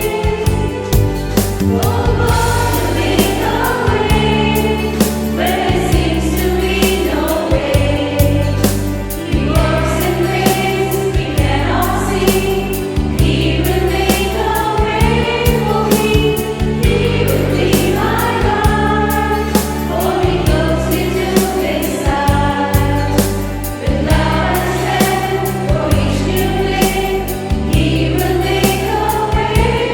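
A choir singing a Christian hymn with instrumental accompaniment: a steady bass and chords under it, with a steady beat.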